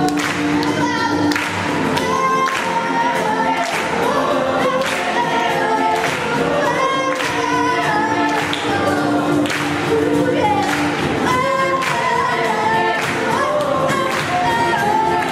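A woman singing with a small acoustic band, acoustic guitar and upright bass, playing live to a steady rhythm.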